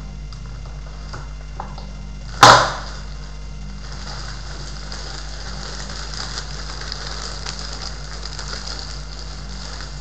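A single loud thump about two seconds in, then a clear plastic bag crinkling and rustling from about four seconds in as it is handled around the boxed film projector.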